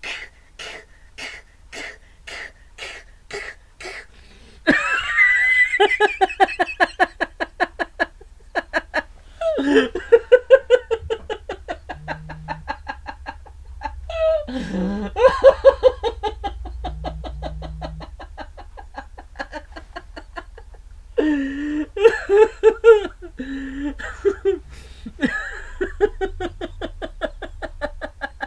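A man laughing in several long fits, each a rapid run of 'ha' pulses. It starts with quieter, evenly spaced chuckles for the first few seconds, then breaks into louder laughter about five seconds in.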